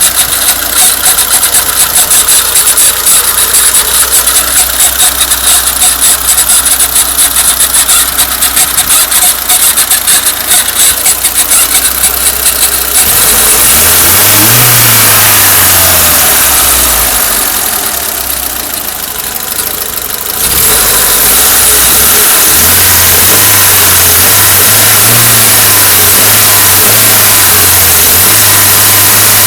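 Nissan CA20E 2.0-litre four-cylinder engine running with a fast, rhythmic squeak from around the timing-belt tensioner pulley. It is a sign of a failing tensioner roller or belt, and shows up once the engine is warm or revved. About halfway through, the engine is revved up and back down, then held at a slightly raised speed.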